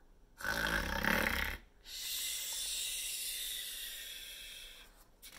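A woman imitating a snore. One snoring in-breath lasts about a second, then a long breathy out-breath fades away over about three seconds.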